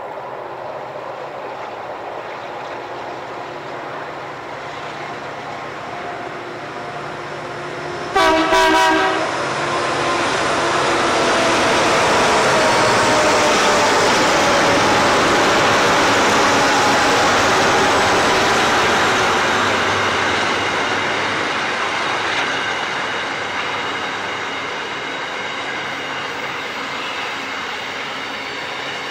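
Freight train hauled by diesel locomotives approaching and passing close by. A short horn blast about eight seconds in lasts about a second. The locomotives' engines are loudest as they go by, then the hopper wagons roll past on the rails.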